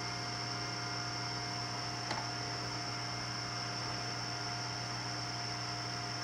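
Steady electrical hum over a faint hiss, with a faint tick about two seconds in.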